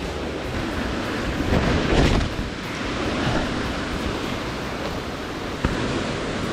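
Steady rush of a mountain stream's water, with a brief louder swell about two seconds in and a single sharp knock near the end.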